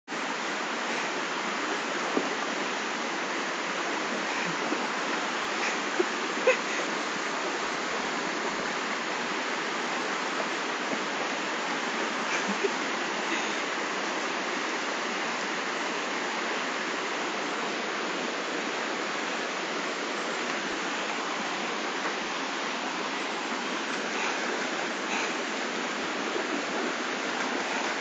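Small waterfall pouring into a shallow plunge pool: a steady rush of water, broken by a few brief splashes from a large dog wading in it.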